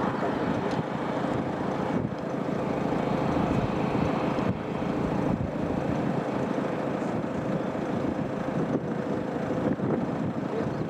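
Steady engine roar with a faint, even whine held on one note, and some wind on the microphone.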